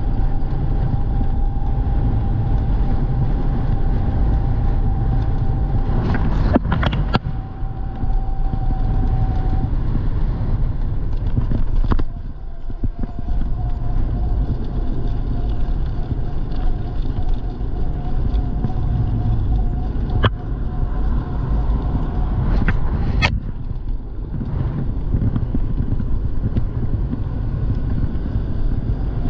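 Riding an electric bike: steady wind and road rumble with a steady motor whine that drops out for a couple of seconds about ten seconds in, plus a few sharp clicks.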